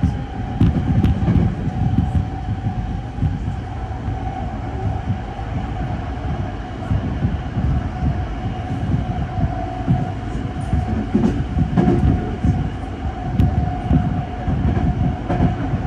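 Running noise heard from inside a Tozai Line rapid train carriage at speed: a steady low rumble of wheels on rail, with a faint steady whine running through it.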